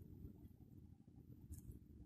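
Near silence: a faint low background rumble, with one brief faint rustle about one and a half seconds in.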